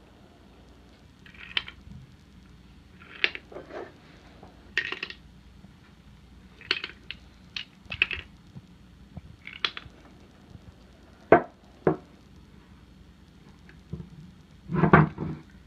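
Homemade pallet-wood puzzle box being handled and worked: scattered short wooden clatters, slides and rattles as its parts are shifted and tried, with two sharp knocks about eleven and twelve seconds in and a louder burst of handling near the end.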